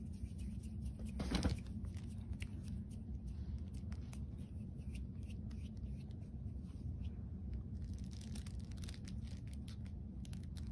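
Quiet room tone with a low hum and faint scattered clicks and rustles, with one louder brief rustle about a second and a half in.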